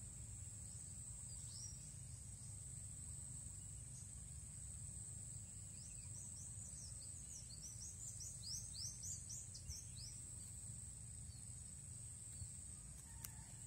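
Rice-field ambience: a steady high-pitched insect drone over a low rumble, with a flurry of quick, downward-sliding bird chirps from about six to ten seconds in.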